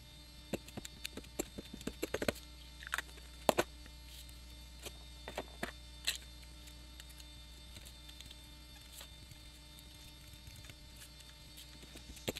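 Pigment ink pad patted repeatedly onto cardstock over paper masks: irregular soft taps and clicks, busiest in the first few seconds, over a steady low electrical hum.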